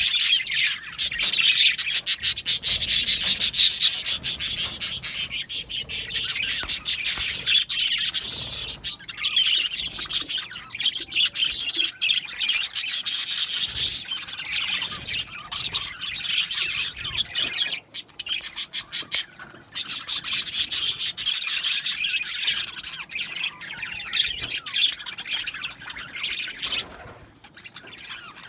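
A flock of budgerigars chattering and warbling: dense, continuous, high-pitched twittering with rapid clicks, easing a little in the second half.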